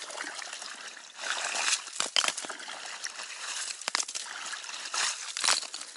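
A gloved hand sloshing and groping in icy slush-filled water down a hole chopped through the ice, feeling for a beaver trap, with several sharp clicks and knocks of ice or trap wire along the way.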